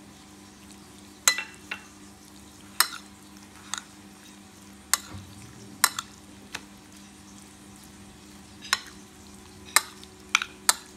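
Metal spoon clinking against a glass bowl while stirring raw chicken pieces in a spice marinade: about ten sharp clinks at uneven intervals, over a steady low hum.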